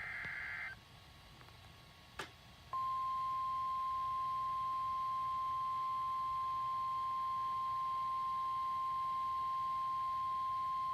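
The tail of an EAS SAME digital header burst, a warbling two-tone data screech that stops about 0.7 s in, then after a click NOAA Weather Radio's 1050 Hz warning alarm tone comes on about three seconds in and holds as one steady, loud beep, signalling that an urgent weather warning follows. Faint radio hiss sits underneath.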